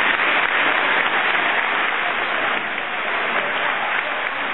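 Audience applause: a dense, steady wash of hand clapping.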